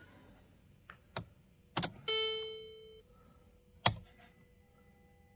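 Clicks of the key going into and turning in the ignition switch of a 2014 Mercedes-Benz C300 (W204), then a single dashboard chime that rings and fades over about a second as the ignition comes on, and one more sharp click a couple of seconds later. The ignition switching on is the sign that the newly fitted steering-lock emulator is working.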